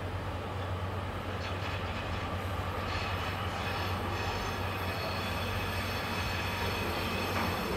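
DB double-deck regional push-pull train rolling slowly in over the station tracks with a steady low rumble that grows louder. Thin high wheel squeals join in from about three seconds in.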